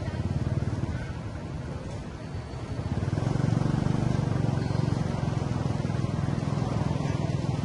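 Low, steady engine rumble from a motor vehicle, growing louder about three seconds in and holding there.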